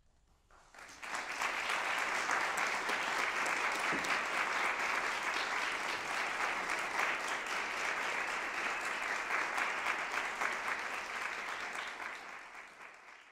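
Audience applause, starting about a second in after near silence, holding steady, then fading near the end.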